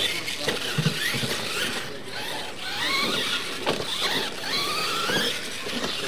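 Losi LMT radio-controlled monster trucks racing: their brushless electric motors whine, the pitch rising and falling with the throttle as several trucks run at once. A few thumps near the start and one in the middle, as the trucks land off jumps.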